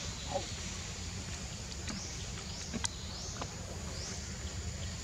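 An insect calling in a repeating series of short, buzzy, high-pitched pulses over a steady low rumble, with a few faint clicks.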